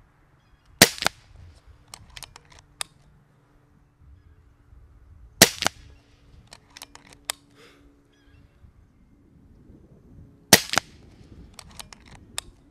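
Kral Puncher Breaker .22 pre-charged pneumatic air rifle fired three times, about five seconds apart, each shot a sharp crack followed about a second later by a few lighter clicks.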